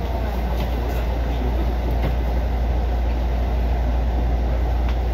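Mugunghwa-ho passenger train rolling slowly into a station, heard from inside the coach: a steady low rumble with a few faint clicks.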